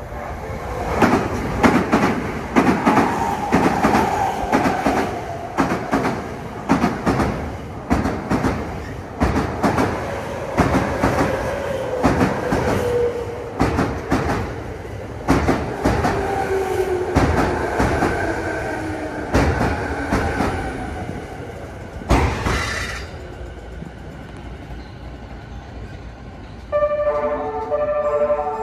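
JR E217 series electric train pulling into the station: its wheels clack over rail joints and points, and its motor whine falls in pitch as it slows. A brief loud burst comes about three-quarters of the way in. Near the end a station chime melody starts.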